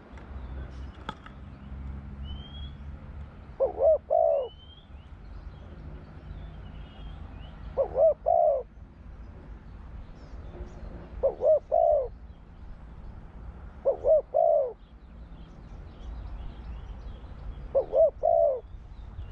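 Spotted dove cooing: five short phrases of a few quick coos each, repeated about every four seconds. Faint chirps of other small birds sound in the background.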